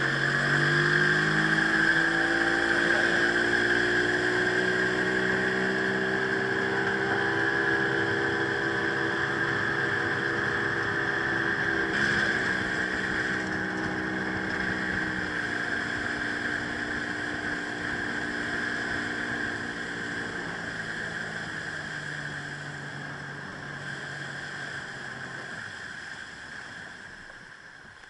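Outboard motor driving an aluminium jon boat. It speeds up at the start, runs at a steady speed across open water, then is throttled back and winds down near the end.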